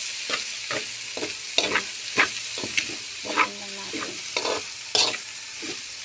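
Chopped chicken innards with onion, garlic and chili sizzling as they fry in oil in a wok, while a spatula stirs and scrapes against the pan about twice a second.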